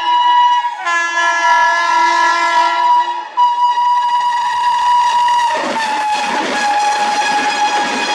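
WAP-7 electric locomotive's twin-tone horn sounding in long blasts: first both notes together, then a single held note. About five and a half seconds in, the horn's pitch drops as the locomotive passes at speed, and the rushing noise of the passing train takes over.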